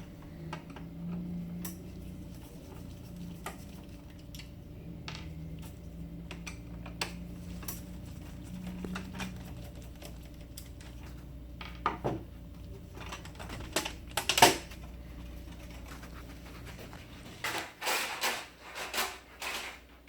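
Scattered clicks and clatter of plastic printer covers, parts and screws being handled and worked with a screwdriver during laser printer disassembly, with a louder burst of rattling clicks near the end. A low background hum stops about three-quarters of the way through.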